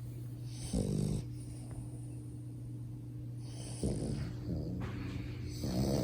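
French bulldog puppy snoring in its sleep: three loud, rasping snores, about a second in, about four seconds in and near the end. Snoring like this is typical of the breed's short, flat-faced airway.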